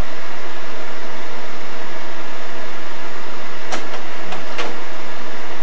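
Slide projector fan running with a steady whir, and a few sharp clicks about four seconds in as the projector changes slides.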